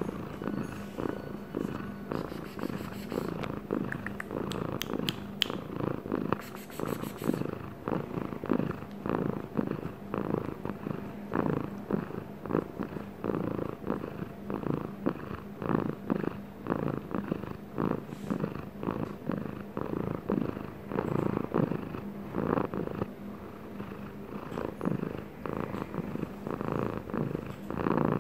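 An elderly long-haired ginger cat purring close up, a continuous rhythmic rumble that rises and falls with its breathing.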